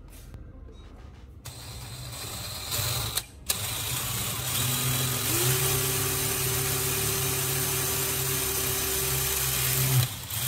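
Electric drill boring a hole through the steel shell of a spark plug held in a bench vise. The drill starts about a second and a half in, stops briefly, then runs steadily with the bit cutting metal; its whine steps up in pitch about five seconds in and holds until it stops near the end.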